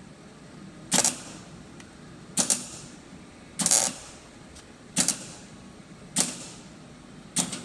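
Six short, sharp mechanical clacks about a second and a quarter apart, from hand work on a GMC Jimmy's faulty door latch.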